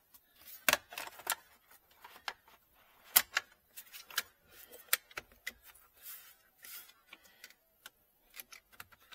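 2012 Audi Q5's plastic battery cover being worked into place over the battery by hand: a string of irregular sharp clicks and knocks, the loudest about two-thirds of a second and three seconds in.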